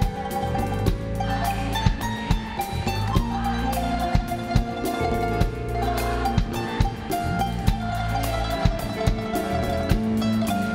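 Live band playing an instrumental interlude in an Arabic pop song: a drum kit keeps a steady beat under bass notes and a held melody line, with no singing.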